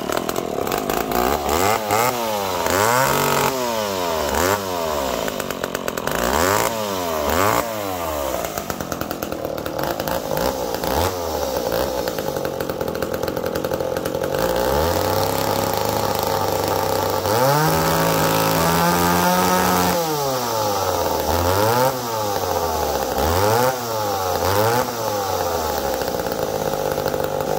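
McCulloch Pro Mac 1010 two-stroke chainsaw running just after starting, blipped up and back down over and over, with a few seconds of steady idle in the middle and a longer held rev after it. Its carburetor freshly rebuilt, it is still a little boggy off idle.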